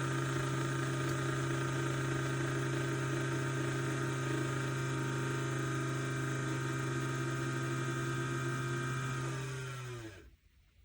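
Frida Baby air purifier's fan running with a steady hum and airflow noise, then switched off near the end, its pitch falling as it spins down to a stop.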